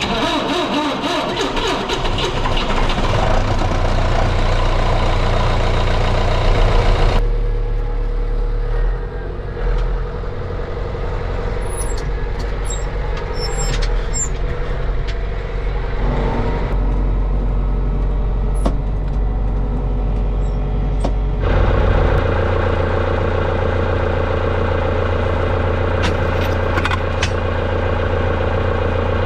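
Heavy farm machinery engines running steadily. The sound shifts abruptly three times from one machine's running to another.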